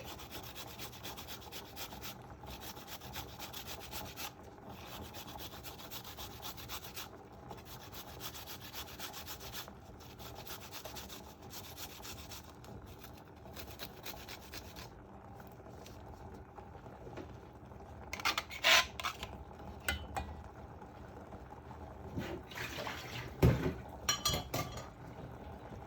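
Fresh turmeric root being grated on a hand grater: a continuous run of rasping strokes. A few louder knocks or taps come near the end.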